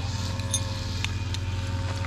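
A motorised grass cutter running steadily in the background, with a few light metal clinks as tent stakes are handled in their canvas storage roll.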